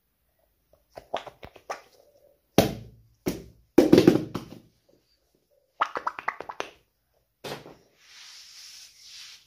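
Hands handling soft squishy fidget toys on a paper-covered board: quick runs of small taps and clicks, with a few louder thunks about three to four seconds in and again later. Near the end comes a soft rubbing rustle as a rubber pickle-shaped squishy is squeezed in the hands.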